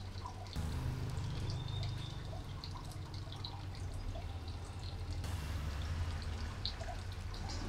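Faint scattered small ticks and taps from handling a 3D-printed plastic template, peeling the backing off double-sided tape with a craft knife, over a steady low hum.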